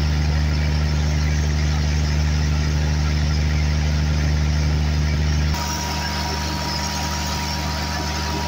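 Large Cummins diesel generator engine running steadily and hard, its turbocharger and exhaust glowing red hot. About two-thirds of the way in, the deep exhaust tone abruptly drops and a steady high whine comes in.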